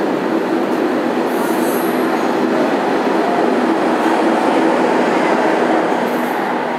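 Train of heritage passenger carriages hauled by steam locomotive R707 rolling past on the rails as it pulls out of the station: a loud, steady rumble of wheels, swelling slightly midway.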